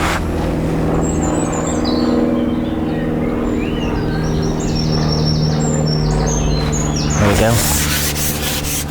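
Small bird singing a run of short high chirps, over a steady low hum. About seven seconds in, rustling and handling noise starts.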